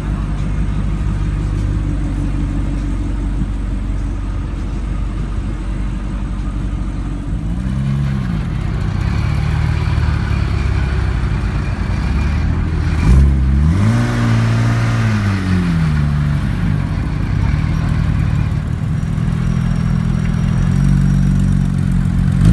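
Audi R8 with an Armytrix aftermarket exhaust idling, blipped once about a third of the way in, then revved harder about halfway through, held for a couple of seconds and dropped back to idle.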